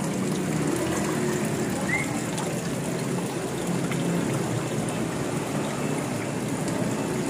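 Water from a small garden waterfall running steadily and trickling into a pond, with a brief high chirp about two seconds in.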